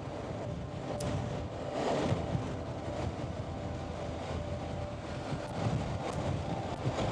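Wind buffeting a helmet microphone with the visor open at highway speed, over the steady running of a Suzuki V-Strom 650's V-twin engine.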